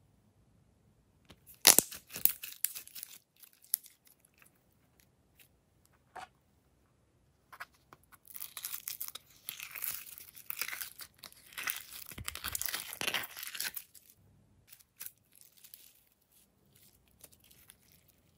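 Glossy glitter slime being stretched, folded and squished by hand, making sticky crackling, snapping and tearing sounds. A sharp burst of snaps about two seconds in is the loudest moment, and a long run of dense crackling follows from about eight to fourteen seconds.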